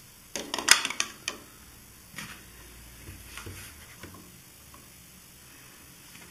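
Handling knocks and clicks as a plastic funnel is set into a motorcycle engine's oil filler hole: a quick cluster of sharp clicks about half a second in, the loudest, then a few lighter knocks around two and three to four seconds in.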